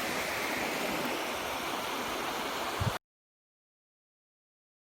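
Sea surf and wind making a steady rushing wash. It cuts off abruptly about three seconds in, followed by silence.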